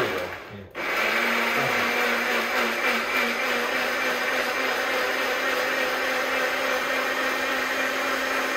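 Personal bullet-style blender motor running under load, puréeing a watery starfruit and wiri wiri pepper sauce. It cuts out briefly about half a second in, then restarts and runs steadily with a constant hum.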